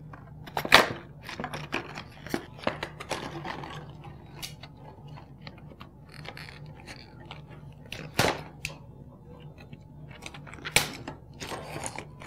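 Toy packaging being unwrapped by hand: irregular crinkling, tearing and crackling, with sharper cracks about a second in, near eight seconds and near eleven seconds.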